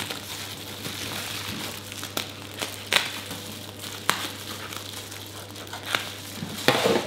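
Bubble wrap crinkling and rustling as it is slit open with a small folding knife and pulled apart, with sharp crackles now and then and a louder crumple near the end.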